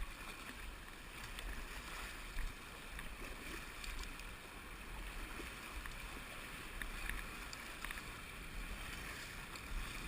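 Faint wash of river water around a kayak on the move, with a few light ticks and one short knock about two and a half seconds in.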